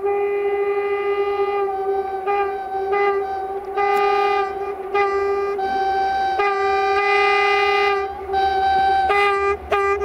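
Diesel locomotive horn sounding a long series of blasts of varying length, separated by short gaps. A steady low tone holds through most blasts while higher tones cut in and out.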